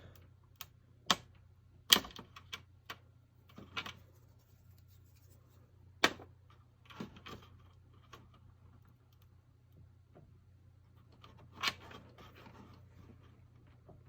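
Irregular sharp clicks and light knocks of plastic cable connectors being unlatched and pulled from a TV main board, with the loudest snaps about 2, 6 and 12 seconds in. A faint steady low hum runs underneath.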